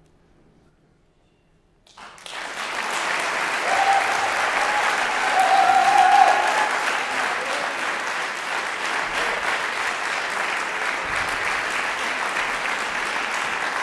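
After about two seconds of near silence, an audience bursts into applause that runs on steadily. A voice cheering rises over the clapping between about four and six seconds in.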